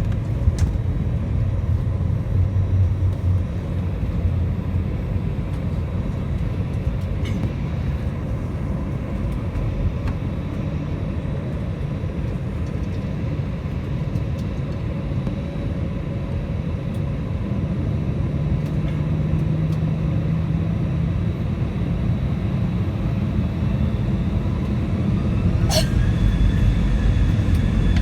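Airbus A321 jet engines running at low power, a steady rumble with a faint whine. Near the end there is a sharp click, then the engines start to spool up with rising whines as the takeoff thrust comes in.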